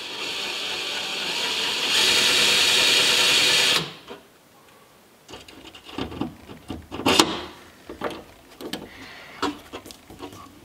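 A cordless drill runs for about four seconds, drilling a rivet hole in the camper door, getting louder about halfway through and then stopping abruptly. Then come scattered clicks and knocks as a hand pop-rivet tool is fitted over a rivet and squeezed, with one sharper crack among them.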